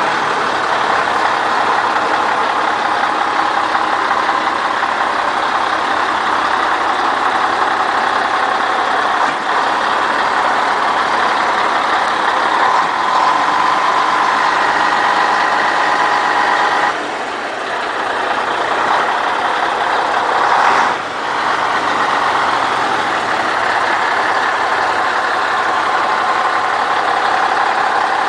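Scania 141 truck with a Scania 113 six-cylinder diesel, running loudly at a steady speed. About two-thirds of the way through, the sound dips, swells up over a few seconds, then drops away sharply and settles back to its steady run.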